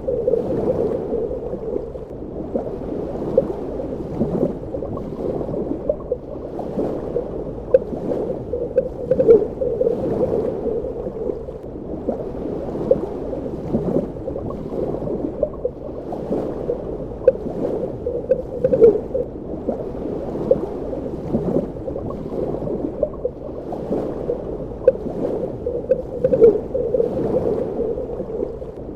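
Underwater ambience: a continuous muffled gurgling and bubbling, heavy in the low range, with many short bubble pops scattered throughout.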